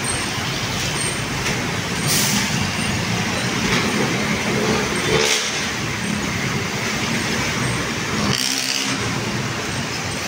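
Busy city road traffic: steady engine and tyre noise from passing vehicles, with three short hisses about two, five and eight and a half seconds in.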